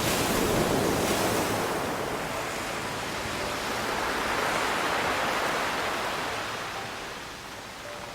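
Ocean surf breaking on a shore. It is a steady wash of water noise that swells twice, once right at the start and again around the middle, then ebbs toward the end.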